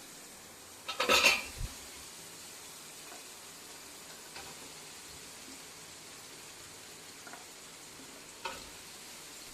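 Food sizzling as it fries in a pan while a spoon stirs it, with a loud clatter of the spoon against the pan about a second in and a few lighter knocks later.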